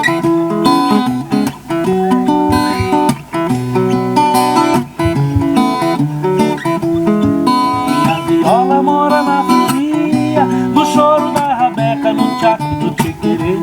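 Viola caipira played as an instrumental introduction to a song, a steady run of plucked and strummed notes.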